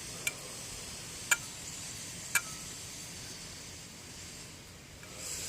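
A newly installed water pump turned by hand, giving three sharp ticks about a second apart as it catches once per turn. The owner suspects stray RTV sealant that has got inside and is just barely catching the impeller.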